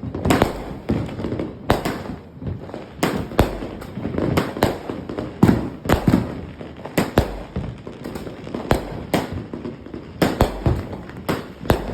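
Fireworks going off in quick, irregular succession: sharp bangs, often two or more a second, each trailing off in a short rumble, over a steady crackling background.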